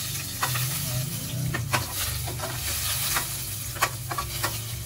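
Garlic sizzling in hot oil in a stainless steel frying pan, while a metal spatula stirs it, clicking and scraping against the pan several times.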